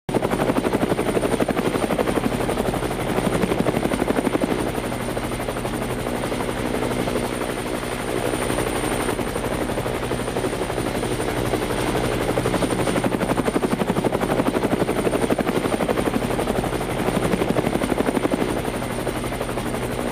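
Small motor spinning a two-blade toy helicopter rotor: a continuous fast whirring chop that swells and eases slightly every few seconds.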